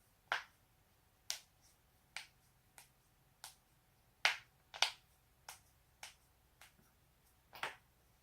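A person's joints being cracked: a string of about eleven sharp pops, roughly two a second, the two loudest a little past the middle.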